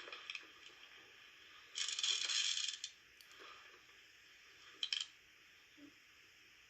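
A jingling rattle about two seconds in, lasting about a second, then two sharp clicks a few seconds later.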